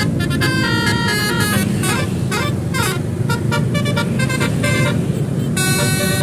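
Telolet multi-tone horn playing quick runs of notes, with a siren-like rise-and-fall sweep a little past two seconds in, over the steady rumble of the vehicle's engine.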